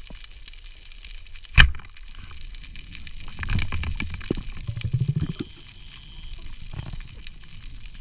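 Speargun firing underwater: one sharp crack about one and a half seconds in. It is followed by a stretch of low rumbling and knocking as the spear and its line are worked in a rock crevice, over steady underwater water noise.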